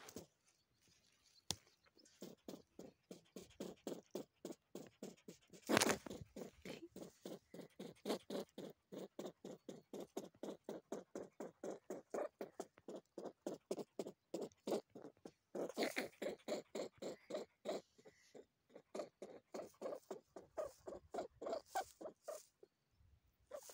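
Young hare (leveret) making short, rapid grunts, about four a second, in long runs with brief pauses. A sharp knock comes about six seconds in, and a short burst of rustle around sixteen seconds.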